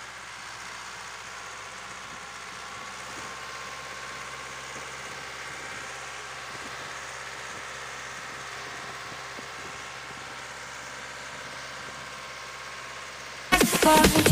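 Deutz-Fahr DX 3.90 tractor's air-cooled diesel engine running steadily. Loud electronic dance music cuts in near the end.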